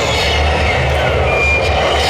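RC model vehicles running, with several motor whines falling in pitch over a steady low hum and din. A short, steady high beep sounds about one and a half seconds in, like a model truck's reversing beeper.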